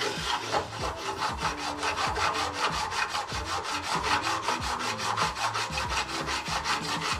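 Rapid, evenly spaced rasping strokes, about seven a second, of a hand tool sawing or dressing sheet-aluminium parts. They stop abruptly just after the end.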